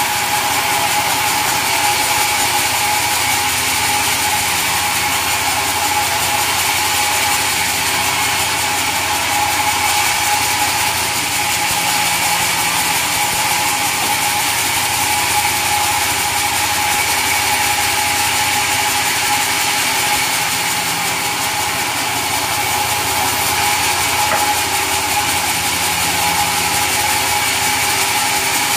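Sawmill saw running steadily, a constant high whine over a dense mechanical drone.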